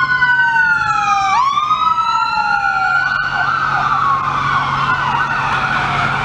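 Ambulance siren sounding as the ambulance drives off. At first two slow wailing tones glide, one sinking and then swooping back up just over a second in. From about three seconds in they change to a rapid yelp.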